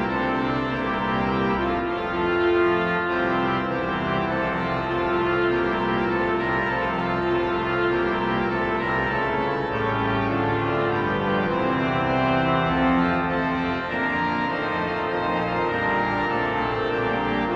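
Viscount Canticus 50 digital church organ playing slow, sustained chords over low pedal bass notes, the chords changing every second or two.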